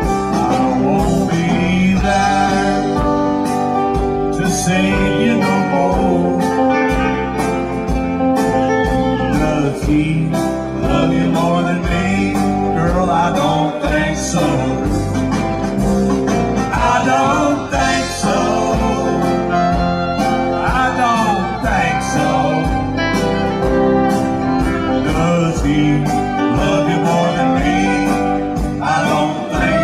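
Live country band playing an instrumental break: bowed fiddle and electric guitars over bass and a steady beat.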